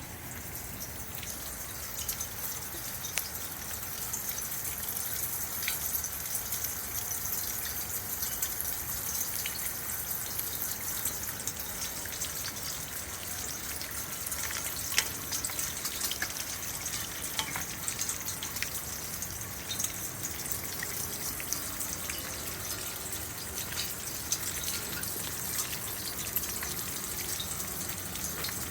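Steady rain and running rainwater, with many scattered sharp drip ticks.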